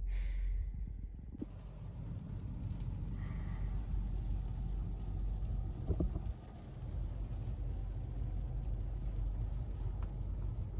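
Rain falling on a car's roof and windows, heard from inside the cabin as a steady hiss over a low rumble, with a single sharp knock about six seconds in.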